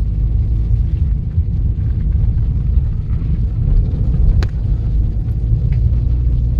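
Steady low rumble of a car on the move, heard from inside the cabin: engine and road noise. One sharp click about four and a half seconds in.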